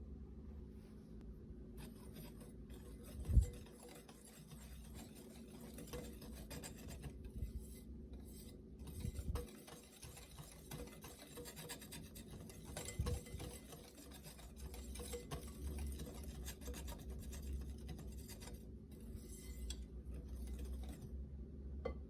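Kitchen utensils scraping and rubbing against a bowl or pan during food preparation, with a single loud thump about three seconds in and a few softer knocks.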